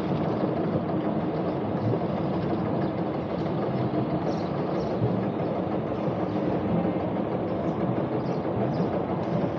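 A sailing boat's engine running steadily at low power during close-quarters manoeuvring, a continuous even rumble with a faint steady hum.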